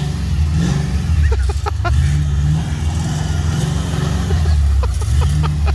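A car's engine revving up and easing off several times as the car works its way through deep snow onto the road.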